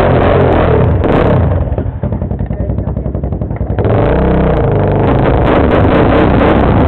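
ATV engine revving, easing off for a moment about two seconds in, then running hard and steady again from about four seconds in as the quad pulls away.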